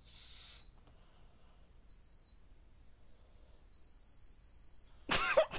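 Small toy whistle blown in short, shrill blasts at one steady pitch. A brief breathy blast comes at the start, a short one about two seconds in, and a longer one that stops about a second before the end. Then a loud voice cuts in, the loudest sound here.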